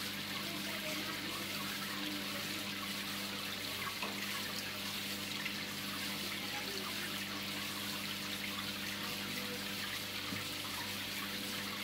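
Aquarium water trickling steadily, with a low steady hum underneath.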